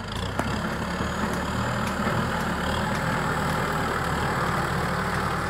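Kubota M6040 SU tractor's diesel engine running steadily under load as it pulls a disc plough through overgrown grass.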